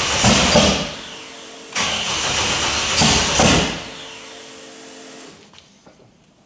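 Ford Barra inline-six in a drift ute being cranked on the starter twice, each time catching briefly and then running rough and dying out instead of settling into an idle. It is a hard start, which is put down to the engine needing more air in the tune.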